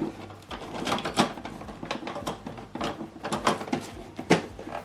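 Plastic clicks and knocks of an ink cartridge being handled and pushed into an HP DeskJet printer's cartridge carriage: a run of short, irregular taps, the sharpest a little over a second in and near the end.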